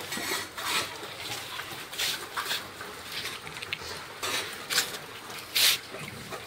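A pack of dogs moving about on a tiled kennel floor: irregular short scuffles and pattering, with no barking, and one louder scuffle about five and a half seconds in.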